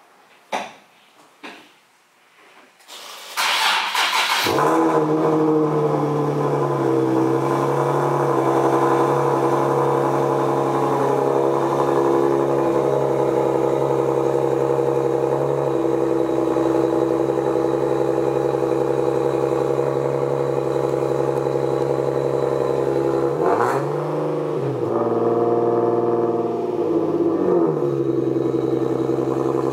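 A couple of clicks, then a Nissan 370Z's 3.7-litre V6 cranks and fires about four seconds in on its first start with a rear-mount twin-turbo setup, and settles into a steady idle with its loud electric turbo oil-return pump running. Near the end the engine is blipped a few times, the pitch rising and falling.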